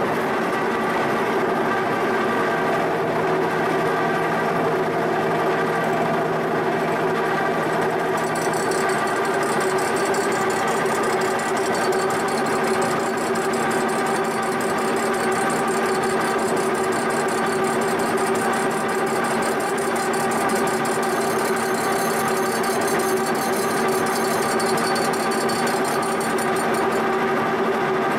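Large horizontal milling machine running steadily, its spindle turning a face cutter against the flanges of a cast-iron John Deere 8000-series exhaust manifold to machine the mounting surfaces flat. The machine's steady whine changes about nine seconds in, when a fine, fast high-pitched chatter joins.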